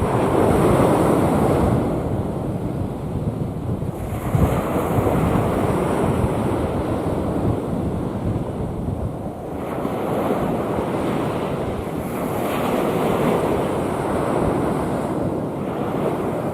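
Rough sea waves surging and breaking on the shore in swells every few seconds, with wind buffeting the microphone underneath.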